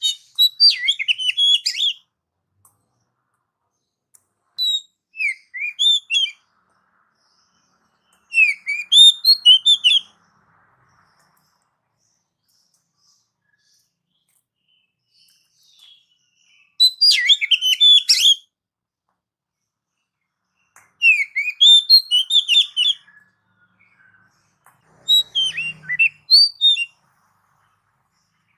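An Oriental magpie-robin (kacer) singing: six short phrases of quick, varied whistled notes, each about two seconds long and separated by pauses, with a longer pause in the middle.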